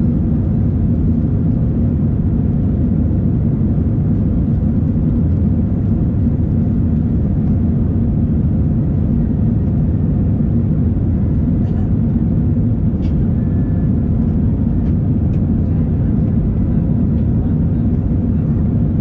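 Steady, loud cabin rumble of an Airbus A319 airliner, its jet engines and airflow heard from inside the passenger cabin, with no change in level.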